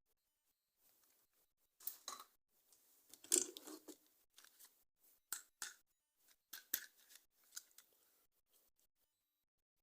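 Toy packaging being handled and opened by hand: irregular quiet crackles, crinkles and clicks, with the loudest flurry about three and a half seconds in.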